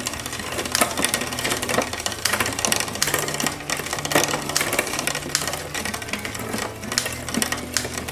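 Bicycle drivetrain being run through the rear gears: the chain clatters over the cassette with a run of sharp clicks as the rear derailleur shifts. The shifts are catching on every gear, a sign the rear derailleur indexing is working after the crash repair.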